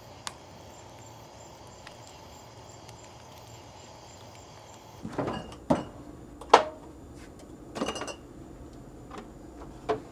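Faint steady background hiss, then from about five seconds in a run of about five knocks and clunks, the loudest about six and a half seconds in.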